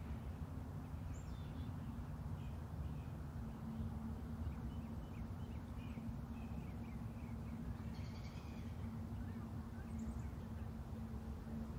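Outdoor ambience: small birds chirping and calling in short scattered notes, with a brighter burst of calls about eight seconds in, over a steady low rumble and a faint hum.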